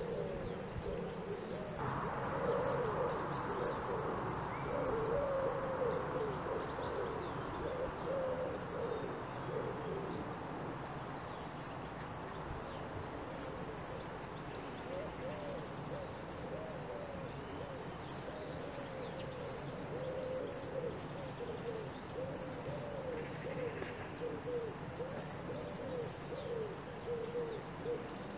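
Birds calling: a long run of low, repeated cooing notes, with faint higher chirps scattered through. A steady hiss joins about two seconds in and fades away by about ten seconds.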